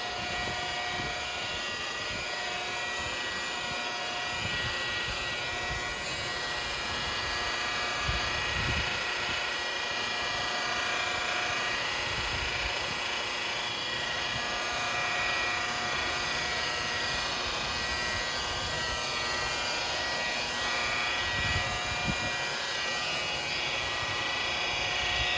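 Electric polisher with a foam pad running steadily at constant speed, a continuous motor whine, as it works polish into a boat's clear vinyl isinglass window.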